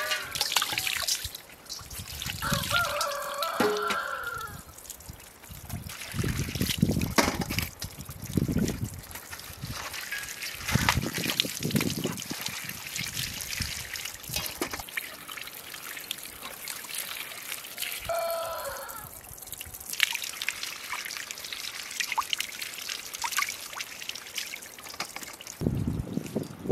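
Tap water running and splashing onto produce and into a stainless steel colander as fruit and a cabbage are rinsed by hand, the splashing swelling and easing as the hands move under the stream. A short call sounds twice over the water, early and again past the middle.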